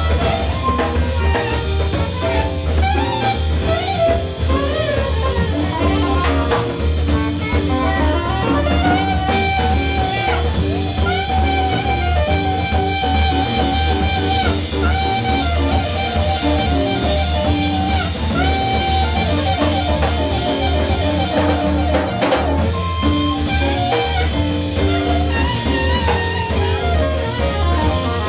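Live jazz: a soprano saxophone plays the lead line in quick runs and fast repeated notes, over piano, congas and drum kit.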